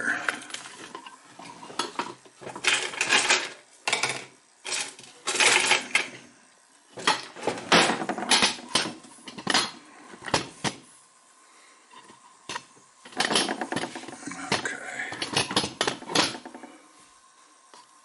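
Small metal tools and parts clattering and clinking as they are handled and rummaged through, in irregular bursts with short pauses between them.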